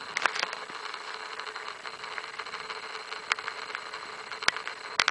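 Safari vehicle's engine running steadily, heard from inside the cab, with scattered rattles and knocks.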